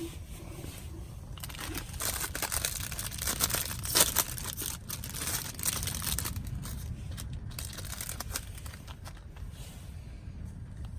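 Irregular crinkling and rustling, as of something being handled, loudest about four seconds in and dying away near the end, over a steady low rumble.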